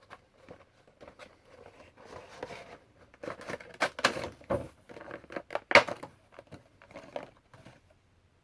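Handling and opening a boxed Funko Pop vinyl figure: cardboard and plastic packaging rustling and crinkling, with irregular clicks and knocks. A sharp knock about six seconds in is the loudest, and the handling dies away near the end.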